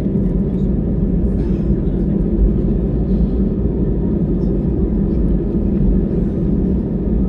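Steady low rumble of an Airbus A320's engines and airflow heard inside the passenger cabin, even and unchanging.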